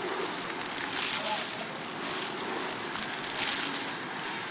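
Splash-pad fountain jets spraying water onto wet concrete: a steady hiss of falling water that swells louder about a second in and again around three and a half seconds in.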